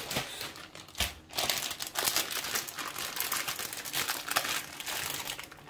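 Plastic bag of grated cheese crinkling as it is handled, with a sharp click about a second in.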